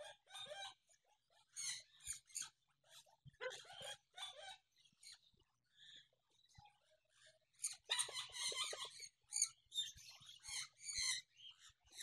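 Faint, scattered squawks and chirps of caged parrots, coming in short bursts with a busier flurry of calls about eight seconds in.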